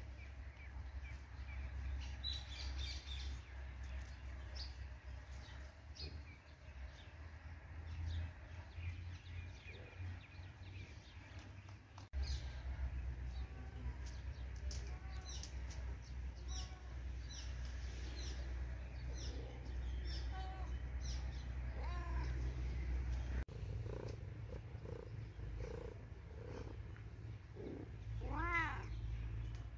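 A domestic cat meows once near the end, a short call that rises and falls in pitch, over a steady low rumble and scattered faint high chirps.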